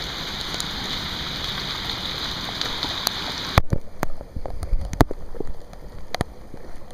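Heavy rain hissing steadily, then dropping off abruptly a little past halfway, leaving scattered single drops tapping close by.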